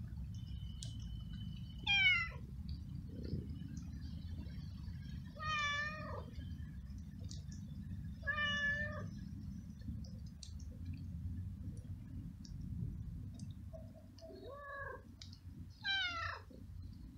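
A hungry stray cat meowing five times, short calls a few seconds apart, the first and last falling in pitch. A steady low rumble runs underneath.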